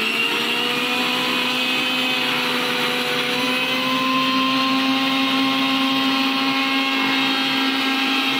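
Electric mixer grinder running at a steady speed with a steady whine, its small steel jar grinding chutney.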